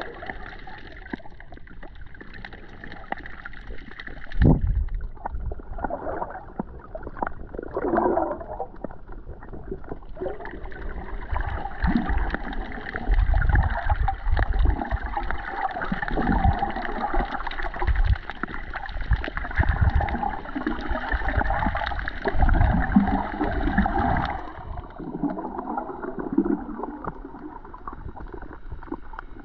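Water gurgling and sloshing heard from underwater through a camera's waterproof housing, muffled, with occasional low thumps. The sound grows louder from about a third of the way in and eases near the end.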